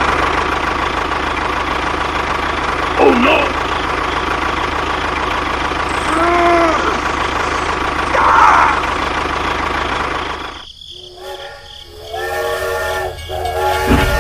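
Tractor engine running steadily, with a few short cartoon-like squeaky calls over it; the engine cuts out about 11 s in. About a second later a chord-like train horn sounds in several blasts.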